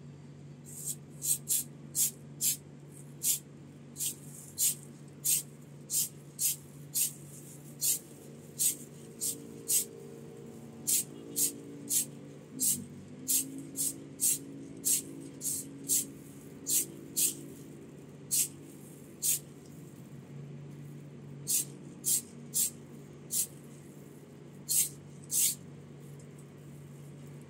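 Aerosol spray can of Mr. Metal Primer fired in short hissing bursts, one or two a second, with a couple of pauses, laying the first primer coat on a bare diecast car body.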